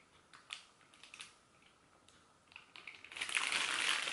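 A few light clicks and taps, then from about three seconds in a clear plastic zip-top bag crinkling as the bagged soda cans inside it are handled and set down.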